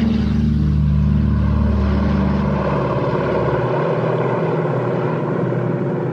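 Twin-engine propeller plane's piston engines running as it takes off and passes low overhead. A held music chord and deep bass under it end just past halfway.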